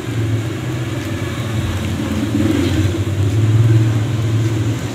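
A steady low motor hum that swells and fades again about three to four seconds in.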